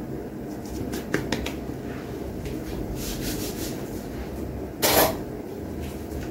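Kitchen handling sounds as floured chicken pieces are worked in a bowl of batter: scattered small clicks and rubs, with one brief louder noise about five seconds in, over a steady low hum.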